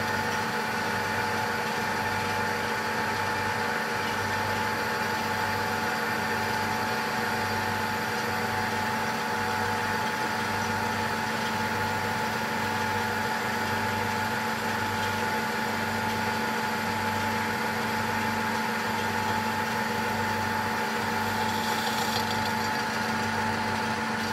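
Metal lathe running steadily, turning a steel workpiece in a plywood steady rest while the tool takes a cut and sheds stringy swarf. The machine hum is steady, with a low pulse about once a second.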